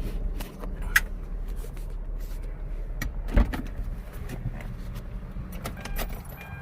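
Car engine running low and steady, with a few handling clicks and a single thump about three and a half seconds in.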